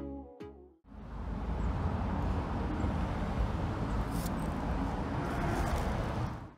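A short tail of music in the first second gives way to steady outdoor background noise, a low rumble with hiss, which cuts off abruptly near the end.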